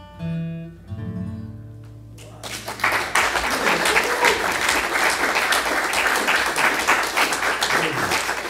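Closing notes of an acoustic guitar ringing out and fading, then audience applause breaking out about two and a half seconds in.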